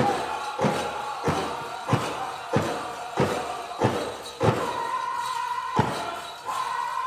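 Powwow drum group playing a chicken dance song: the big drum is struck in a steady beat about one and a half times a second, under high-pitched group singing with long held notes.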